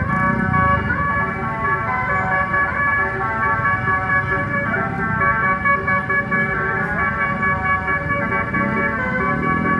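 Multi-tone basuri (telolet) bus horn sounding several steady tones together as a held chord, over a low rumble.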